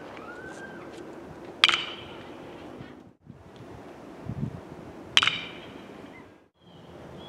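Two sharp, ringing pings of a metal baseball bat striking the ball, about three and a half seconds apart.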